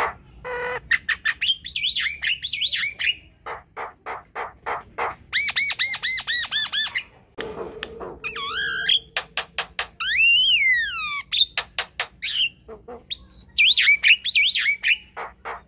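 Javan myna in full song: a varied run of fast clicking notes and chatter, a quick series of arching whistled notes about five seconds in, and a long whistle that rises and then falls about ten seconds in.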